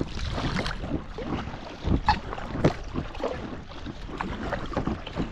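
Packraft paddle strokes splashing in lake water, with wind noise on the microphone; the strokes come at uneven intervals, the loudest a little after two seconds in and again near three seconds.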